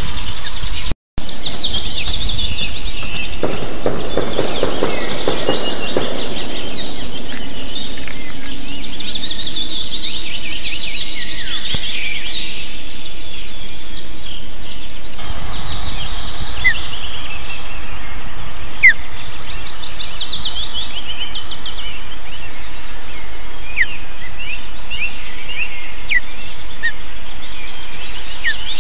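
Birds chirping in many short, high calls over a steady, loud hiss; the sound drops out completely for a moment about a second in.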